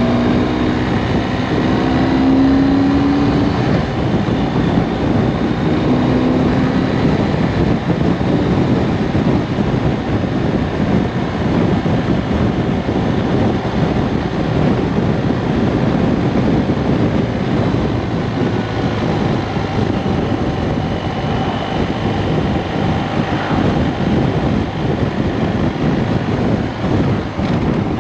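Wind buffeting a body-mounted camera microphone while riding a BMW R1250RS, over the steady running of its 1254 cc boxer twin. The engine note rises slightly in the first few seconds as the bike accelerates, then settles into a steady cruise under the wind noise.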